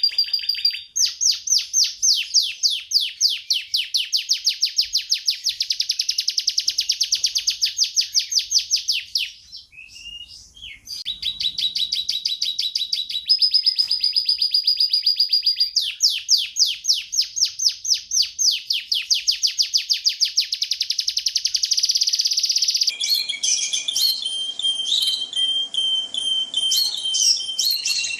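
Domestic canary singing long rapid trills, each a fast run of repeated high notes, one after another with a short break about ten seconds in. Near the end the song changes to shorter, more varied phrases over a faint hiss.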